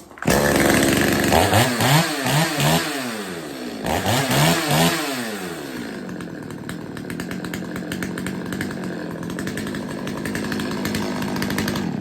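Stihl 025 two-stroke chainsaw running just after starting, its throttle blipped several times in quick rises and falls of engine speed, then settling into a steady idle. The saw's carburettor has just been tuned, with the low-speed mixture richened and the idle reset.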